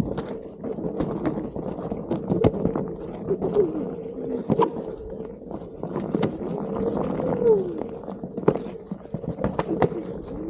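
Onewheel GT's electric hub motor whining as it rides, its pitch rising and falling a few times with speed, under frequent sharp knocks and rattles of the board going over rocks and roots.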